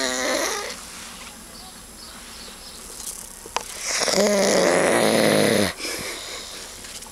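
A man snoring in his sleep: quiet breathing, then one long, loud snore about four seconds in that lasts about a second and a half.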